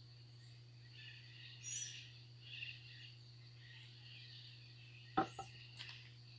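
Faint bird chirps over a steady low hum, with one sharp knock of wood on wood about five seconds in as the boards are handled on the workbench.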